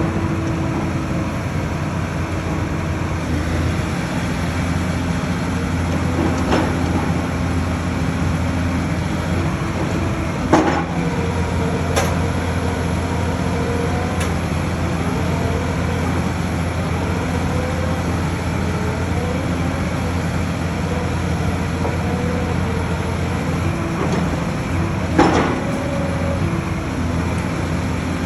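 Diesel engine of a rotary drilling rig running steadily under work, with a low hum, and three sharp metallic knocks: two close together about ten seconds in and one more near the end.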